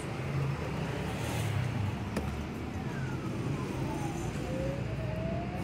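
Claw machine dropping its claw. A steady low mechanical hum runs under a thin electronic tone that slides down in pitch as the claw descends and begins rising again near the end, with a single click about two seconds in.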